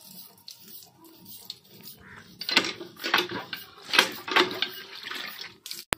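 Cast-iron hand pump being worked by its handle while chicken pieces are washed in a steel bowl under the spout. In the second half there is a run of sharp, uneven strokes and splashes about half a second apart.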